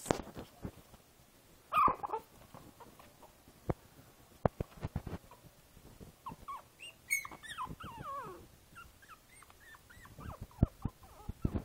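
Five-week-old Boston Terrier puppy whimpering. A brief cry comes about two seconds in, then a run of short, high whines from about six seconds on, with scattered knocks and rustles.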